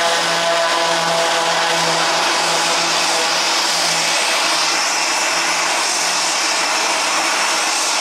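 Twin-engine turboprop aircraft running its engines at high power as it starts its takeoff roll: a loud, steady engine and propeller drone with a low pulsing tone, and a higher whine that comes in about halfway through.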